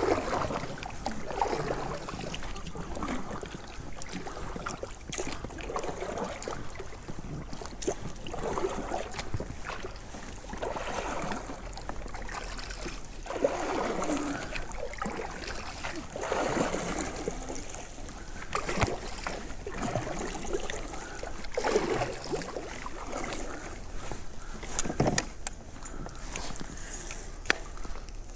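Kayak paddle strokes in river water: a swish and slosh every two to three seconds, with a few sharp knocks along the way.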